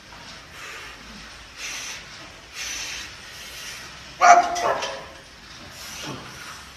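A lifter's forceful breaths, then a short, loud, strained grunt about four seconds in as he presses a maximal 310 kg bench press.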